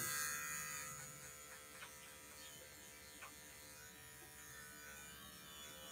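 Electric dog grooming clippers running with a faint, steady buzz as they trim the fur on a dog's ear.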